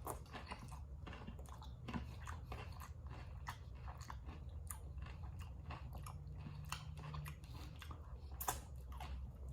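A person chewing food, with irregular faint wet mouth clicks throughout.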